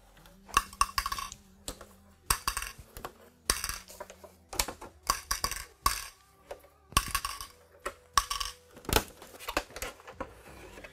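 Torx screws being removed from the stereo's back panel: a series of irregular clicks and small metallic clinks as the screwdriver works and the loose screws are set down.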